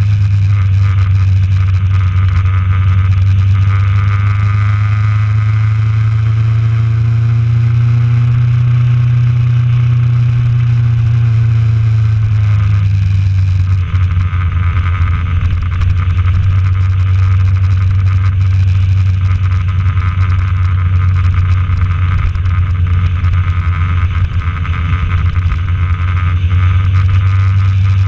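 Honda CB1000R's inline-four engine running at a steady cruise under a constant rush of wind noise. The engine note rises slightly and eases back down in the first half, then holds steady.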